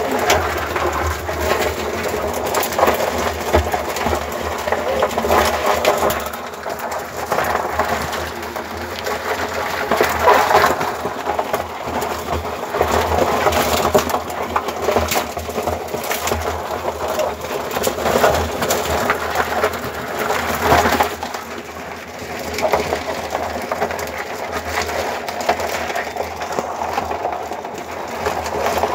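A mass of live crabs crawling over one another in a plastic bucket, their shells and legs scraping and clicking against each other and the plastic in a dense, continuous crackle.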